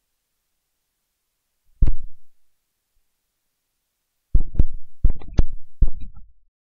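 Loud low thumps and rumbles on the microphone: one about two seconds in, then a cluster of several close together from about four and a half seconds, with near silence between.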